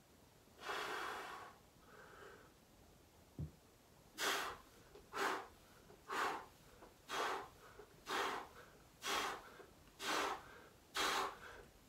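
A man breathing hard during fast bodyweight Bulgarian split-squat reps. There is one long exhale about half a second in and a soft thump a few seconds in. From about four seconds in come sharp exhales at about one a second, one with each rep.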